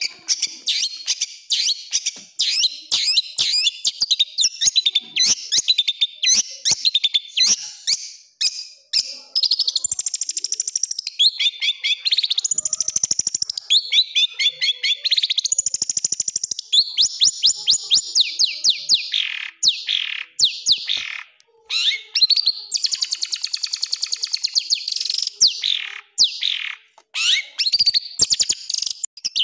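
Long-tailed shrike (cendet) singing a fast, varied song: rapid strings of sharp high chips and trills, with harsh rapid-fire phrases. A brief pause comes about two-thirds through, followed by a buzzy rattling passage, and falling sweeps come near the middle and near the end.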